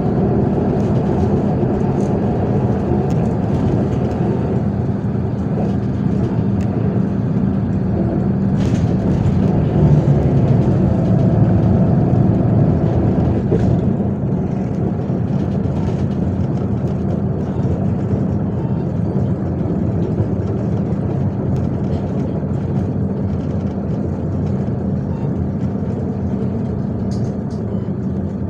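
Interior of a MAZ 103.465 city bus on the move: its diesel engine and drivetrain drone steadily, with road noise and small rattles. The sound swells a little about ten seconds in, then eases off.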